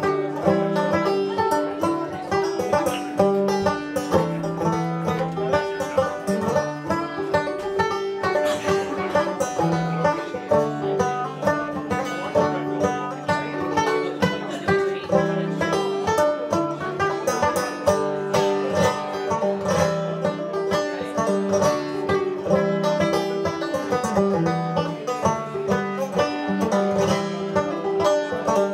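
Banjo played clawhammer style, a lively run of Scottish tunes in a continuous stream of quick plucked notes.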